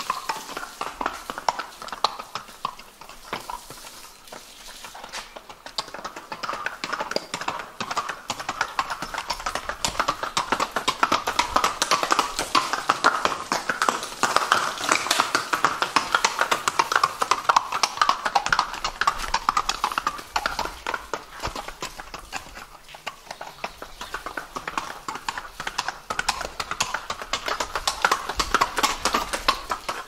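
A ridden horse's hooves clip-clopping on paving stones at a walk, a steady run of hoofbeats that grows louder and softer as the horse passes back and forth.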